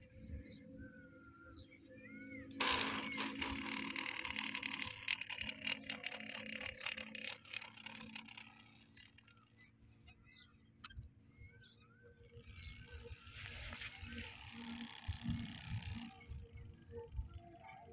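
Homemade mini borewell drilling rig clattering and rattling, starting suddenly about two and a half seconds in and again from about thirteen seconds. Birds chirp in the quieter gaps.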